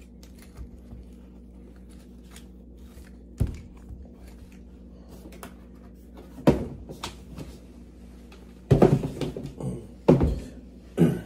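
A sneaker and its cardboard shoebox being handled on a tabletop: a handful of separate dull thumps and knocks as the shoe goes into the box and the box is closed and moved. The loudest knocks come close together near the end.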